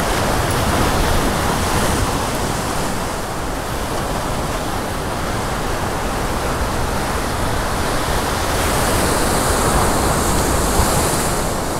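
Ocean surf breaking and washing over rocks below, a continuous loud rush of water. A bigger wave breaks late on, and the hiss swells with its spray.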